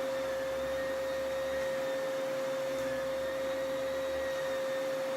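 Vacuum cleaner running steadily, its motor giving a constant high whine over a rushing hiss.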